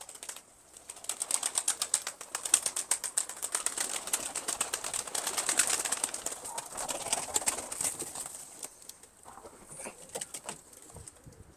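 A flock of domestic tumbler pigeons flapping their wings as they take off and land, a fast, dense clatter of wingbeats. It dies away about three-quarters of the way through, leaving only a few faint flutters.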